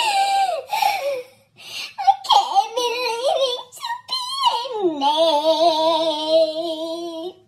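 A woman's high, sing-song vocalizing with no words: short gliding notes with breaks, then one long held note with a wavering pitch from about five seconds in.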